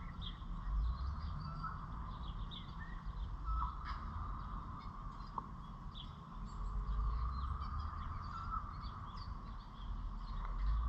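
Small birds chirping in short, scattered calls over a steady outdoor background with a low, uneven rumble underneath.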